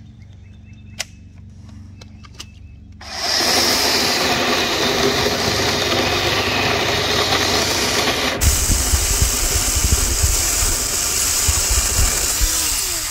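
Ridgid 18-volt cordless electric chainsaw starting up about three seconds in and running steadily as it cuts through a log. A low rumble joins in about eight seconds in, and the saw stops right at the end.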